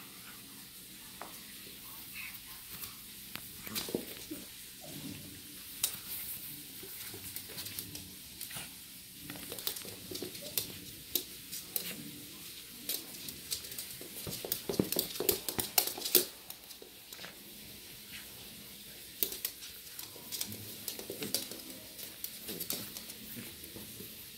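A miniature schnauzer scuffling at a slippered foot in play: a busy patter of sharp clicks and scratchy ticks from its claws and the slipper on the wood floor and rug, thickest about four seconds in and again around fifteen seconds.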